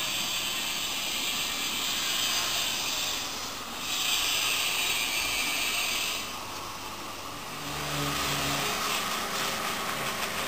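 Gas torch hissing in two long stretches, heating the bronze surface for patination. About seven and a half seconds in, the hiss gives way to a rougher, lower noise with a brief hum.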